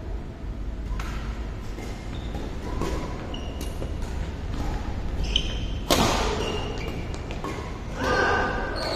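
Badminton rally in a large indoor hall: a series of sharp racket hits on the shuttlecock, the loudest about six seconds in, with short squeaks of court shoes on the floor between them.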